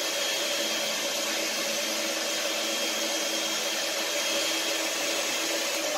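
Electric hand mixer running steadily at one speed, beating a runny flour, yeast and water batter in a stainless steel bowl.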